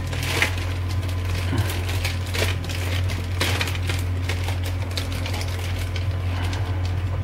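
Clear plastic bags crinkling and plastic model-kit sprues clicking and rattling as they are pulled out and handled, over a steady low hum.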